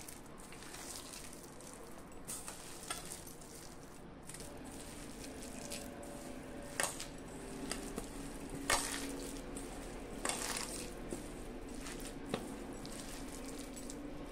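A hand squeezing and tossing shredded cabbage and onion coated with gram flour and spices in a stainless steel bowl: a steady soft, crackly rustle and squish of the damp vegetables, with a few sharper clicks about seven, nine and ten seconds in.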